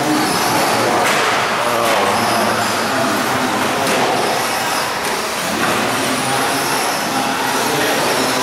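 Electric 2WD short course RC trucks racing on dirt: the electric motors whine as the trucks speed around the track, over a steady din.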